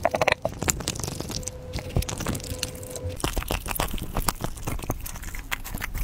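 A German Shepherd biting and crunching into a crocodile head, with many quick, irregular crunches of teeth on bone and hide.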